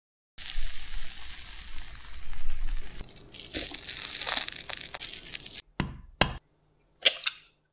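Cooking sounds in quick succession. First an egg mixture sizzles in a frying pan, a steady hiss for about three seconds. Then the omelette crust crunches and tears as chopsticks cut into it, and near the end an egg is cracked with three short sharp cracks.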